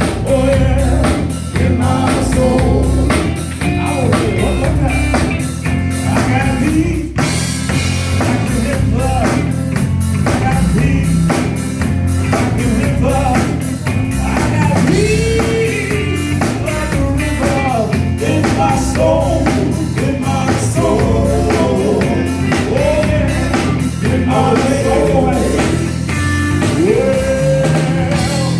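Live gospel band playing with singing: drum kit keeping a steady beat under guitar and bass, with voices rising and falling over it.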